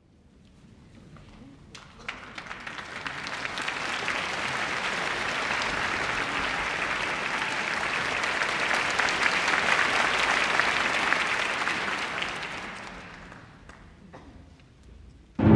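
Concert-hall audience applauding the conductor. The clapping builds over the first few seconds, holds, and dies away about thirteen seconds in. At the very end the orchestra comes in loudly with timpani.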